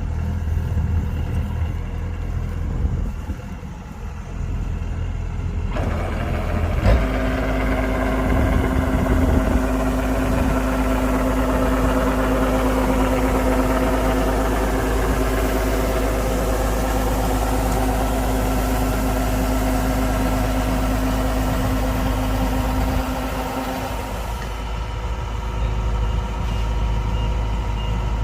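Kubota DC-105X combine harvester running with a steady engine drone. About seven seconds in it grows louder and a steady hum joins, which drops away a few seconds before the end. Faint repeated beeps come near the end.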